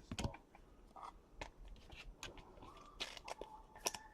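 Trading cards and their packaging being handled, giving faint, irregular clicks and short rustles and scrapes.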